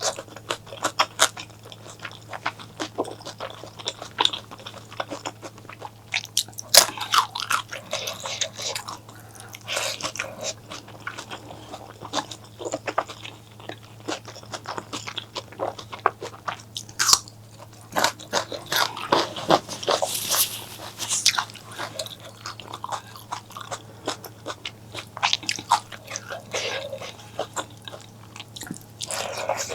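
Close-miked eating: irregular crunching, biting and chewing of food, with many sharp crackles, over a faint steady low hum.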